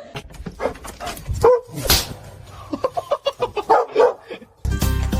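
A dog giving short barks and whimpering yips among clicks and knocks. Music starts abruptly near the end.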